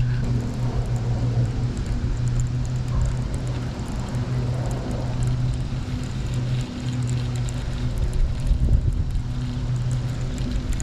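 Wind rumbling on the microphone over a steady low mechanical hum.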